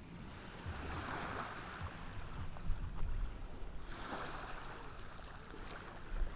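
Ocean waves washing onto the shore, the hiss of the surf swelling twice, about a second in and again about four seconds in, over a low rumble.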